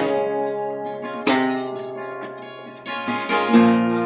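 Epiphone EL-00 parlor acoustic guitar strummed with a flat pick: a chord struck about a second in rings out and fades, then lighter strums pick up near the end.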